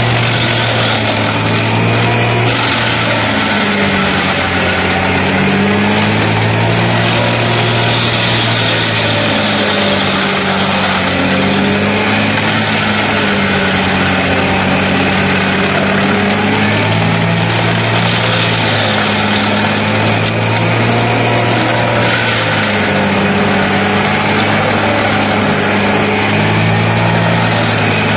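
Engine of a heavy forestry machine running steadily, its pitch shifting up and down every few seconds as the load changes.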